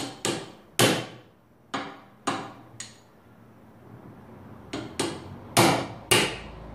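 Small hammer striking wooden wedges into the spindle joints of a Windsor chair: about ten sharp taps in two bursts, each with a brief ring. The wedges lock the spindles in their glued holes.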